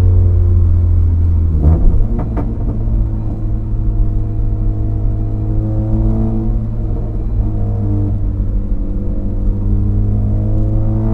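Honda CR-Z's 1.5-litre four-cylinder engine breathing through a custom direct exhaust with a trumpet muffler, heard from inside the cabin while driving: a loud, deep drone whose pitch falls, then rises again as the car pulls. A few short knocks about two seconds in.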